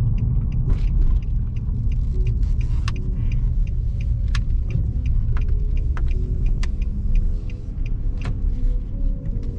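Car being driven, heard from inside the cabin: a steady low rumble of road and engine noise, with scattered small clicks.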